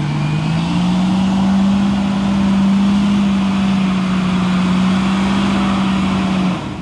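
Engine of an off-road vehicle revving hard as it climbs a steep slope. The revs rise over the first second, hold high and steady, then drop away near the end.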